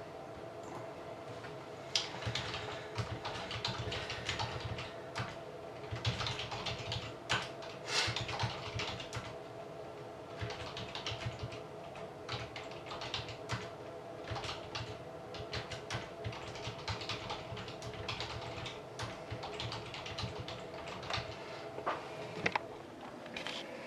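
Typing on a computer keyboard: an irregular run of quick key clicks with short pauses, starting about two seconds in and going on almost to the end.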